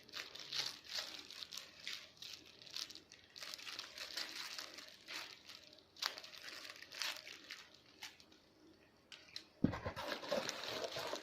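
Thin plastic packaging crinkling and tearing as a squishy toy is handled and unwrapped, with irregular crackles throughout and a louder bump near the end.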